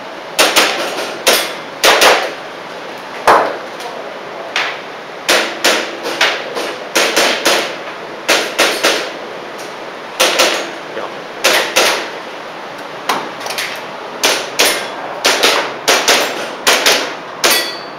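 Airsoft pistol firing a string of about two dozen sharp shots, many of them in quick pairs, with BBs snapping against the targets.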